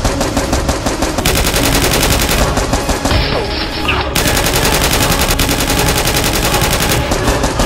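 Rapid, continuous automatic gunfire: a dubbed firearm sound effect laid over toy blasters, with overlapping bursts from more than one gun.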